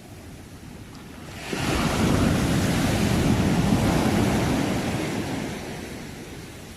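A sea wave breaking: a low surf hiss, then the wave's crash rising suddenly about a second and a half in, holding loud for a few seconds and fading away as the wash settles.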